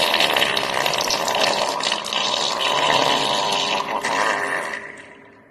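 Long wet, bubbling fart that runs for several seconds and fades out near the end.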